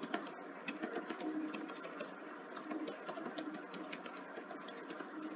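Computer keyboard typing: a run of short, uneven key clicks as words are typed.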